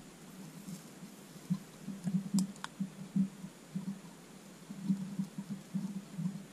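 Faint, irregular low handling sounds while a soldering iron tip is worked against an RC connector. There are a couple of light clicks about two and a half seconds in.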